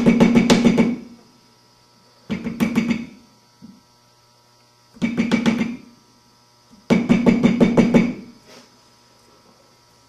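Clay legs knocked down rapidly against a worktable to even them to the same length: four bursts of quick knocks, each about a second long and the last one longest, with the table ringing under the strokes.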